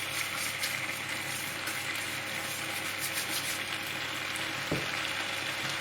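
Chicken curry with tomato puree sizzling in a frying pan while it is stirred, with steady frying and faint scraping. One short knock comes a little under five seconds in.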